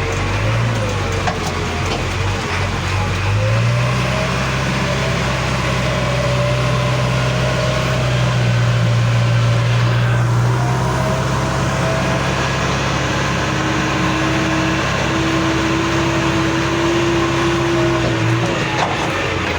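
Diesel engine of a JCB backhoe loader running. It speeds up about three and a half seconds in, holds a steady higher speed, then drops back near the end.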